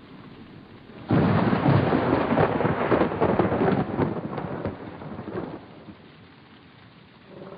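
Thunderclap: a sudden loud crack about a second in, then crackling and rumbling that fades away over several seconds.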